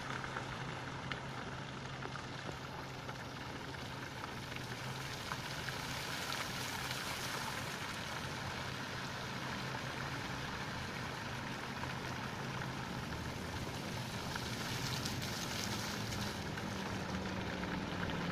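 Fountain water splashing into its basin, a steady rain-like patter that swells twice as the jets rise. Road traffic runs underneath as a low hum.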